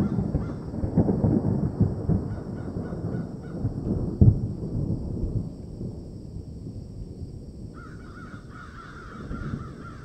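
Bird-call sound effect: bird calls over a low rumble that fades away, and a higher, fluttering call starting near the end.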